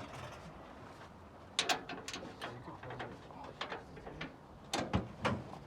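Irregular metallic clicks and clanks of a hand wrench working on a truck's fender bolts: single knocks and short clusters of two or three, spaced unevenly.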